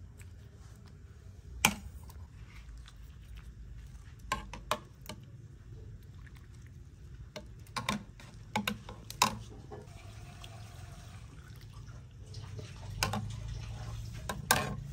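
Scattered sharp clicks and light knocks over a low steady hum, the loudest about two seconds in: a glazed ceramic soup bowl being handled and set down in a wicker basket.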